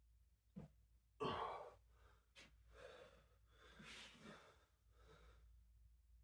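A man breathing with effort: a sharp, forceful breath about a second in, a short click, then longer, softer breaths.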